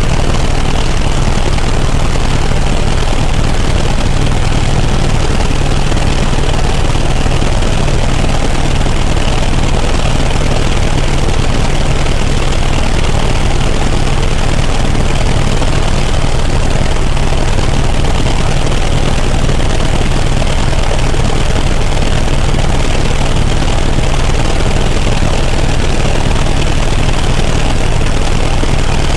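Helicopter in flight: a steady, loud drone of engine and rotor with a strong low hum, unchanging throughout.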